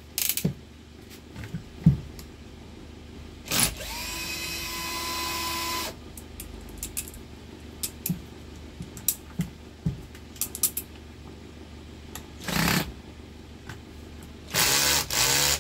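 Cordless drill-driver running in short bursts on the fan motor's screws, the longest run about two seconds with a steady whine that rises as it spins up, with small clicks of handling in between. The factory screws are very tight.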